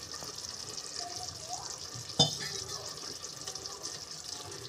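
Soya chunk curry gravy sizzling in a pot on the stove just after water has been added, a steady high hiss, with one sharp knock about two seconds in.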